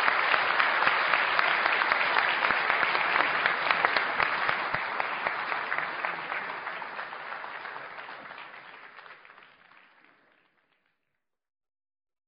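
Audience applauding, with many hands clapping together, after a speaker ends a talk. It fades out over the second half.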